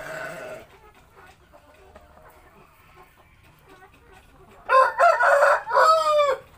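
A rooster crows once, loud, about two seconds long near the end, its call falling in pitch at the close.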